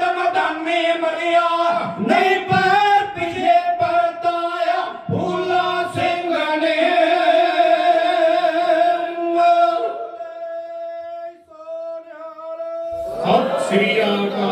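A kavishri group of singers singing Punjabi verse together, their voices moving through the line and then holding one long steady note for a few seconds near the end.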